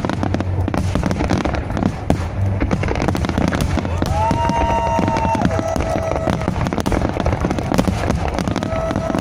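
Aerial firework shells bursting in a dense, continuous crackling barrage, typical of a display's finale. Two steady whistling tones rise above it, one about four seconds in lasting a second and a half, the other near the end.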